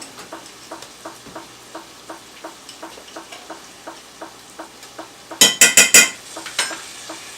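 Ground beef and garlic being stirred in a skillet: a utensil scraping and tapping against the pan about four to five times a second over a faint sizzle. About five and a half seconds in come four loud sharp clanks in quick succession, then one more.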